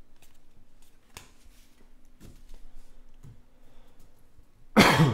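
Baseball trading cards being handled and set down on a stack, making faint slides and soft taps about a second apart, then a sudden loud bump near the end.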